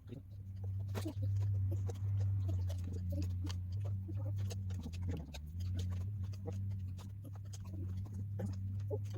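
Scattered light clicks and taps of hand tools working at a plastic front hub cap, over a steady low hum.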